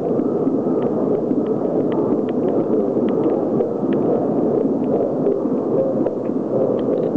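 Recorded heartbeats played loudly through speakers in a huge echoing hall, running together into a continuous dense rumble, with faint light clicks over it.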